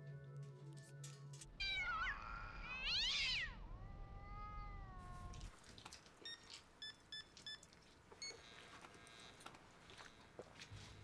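A cat meowing: a few drawn-out calls that glide up and down in pitch in the first half, with music behind.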